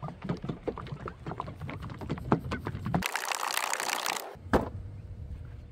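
Clicks and knocks of a metal paint can being handled, with a short burst of hiss about three seconds in and one sharp click just after it.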